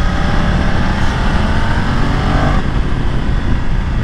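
BMW F 900 XR's parallel-twin engine accelerating, its note rising steadily for about two and a half seconds and then dropping away suddenly, under heavy wind rumble on the rider-worn microphone.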